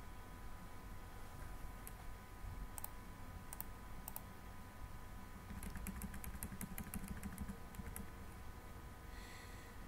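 Computer keyboard typing: a few separate key clicks, then a quick run of keystrokes starting about halfway through and lasting a couple of seconds, over a faint steady hum.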